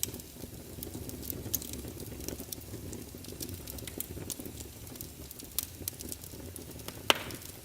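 Fire in a fireplace crackling: many small irregular pops over a low steady rumble, with one sharper pop about seven seconds in.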